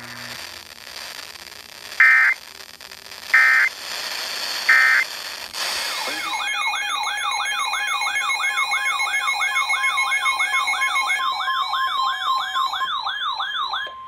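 Emergency Alert System end-of-message signal: three short digital data bursts about a second apart, ending the warning. Then a loud warbling siren-like alert tone, sweeping up and down about two and a half times a second.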